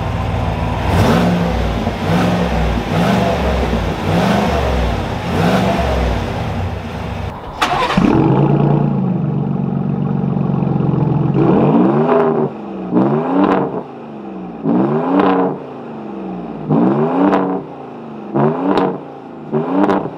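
Exhaust sound of two pickups revved in turn: a 2020 Ford Raptor's twin-turbo 3.5-litre V6 through a Corsa exhaust with the resonator deleted, and a 2020 Chevy Silverado Trail Boss's 6.2-litre V8. First comes a rough, bright run of quick revs about once a second. After a cut near the middle, an engine idles for a few seconds and is then blipped about eight times.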